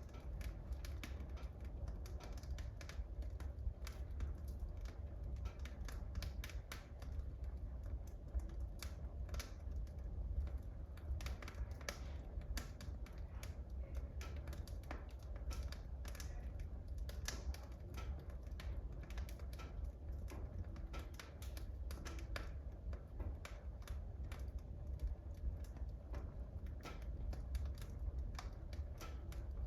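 Wood fire burning in a wood burner, crackling and popping with many irregular sharp snaps over a steady low rumble.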